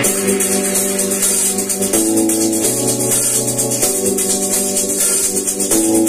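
Music played loud through a JBL PartyBox 1000 party speaker and picked up by a microphone in the room. A fast shaker- or hi-hat-like percussion pattern comes in right at the start, over held chords that change every couple of seconds.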